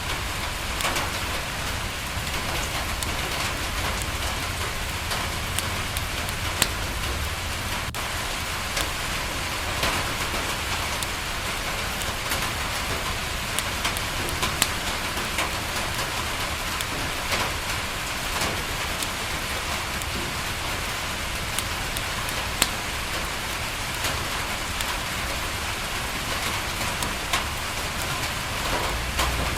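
Steady rain falling on a window, with scattered sharp pops and ticks from a crackling wood fire.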